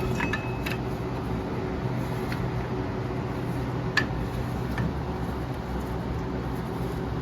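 Steady mechanical hum with a few sharp metallic clicks, the loudest about four seconds in, as a drum-in-hat parking brake shoe is twisted and worked off a truck's rear backing plate.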